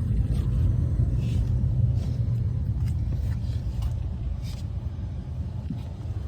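Attic air handler's indoor blower fan running, a steady low rumble with a few faint knocks over it; the blower is moving air even though the system is not cooling.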